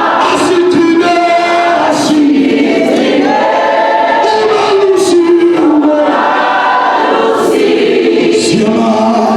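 A church congregation singing together in chorus, many voices holding and sliding between long notes.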